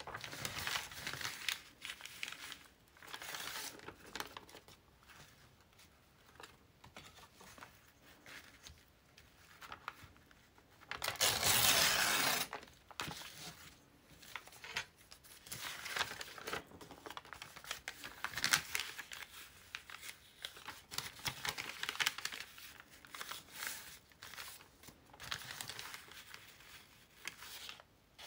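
Crumpled, stiff paper crinkling and rustling in short bursts as it is handled and folded, with one longer, louder burst about eleven seconds in.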